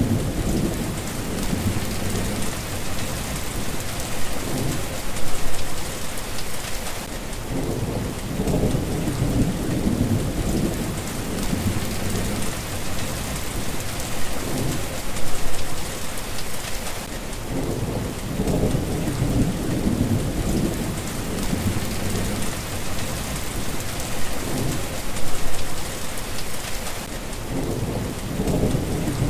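Steady rain falling with an even hiss, under low rolling thunder rumbles that swell and fade several times.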